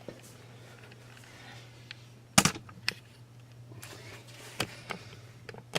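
A few sharp knocks and clicks, loudest about two and a half seconds in, over a steady low hum.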